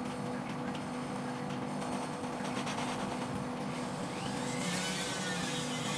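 A workshop electric motor running steadily, a constant hum over a noisy whirr, with faint scratchy tool sounds near the end.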